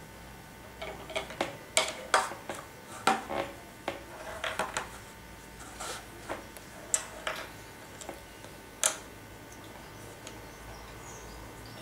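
Plastic toy parts and Play-Doh cans clicking and tapping as they are handled and set down on a tabletop, in scattered light knocks that stop about nine seconds in.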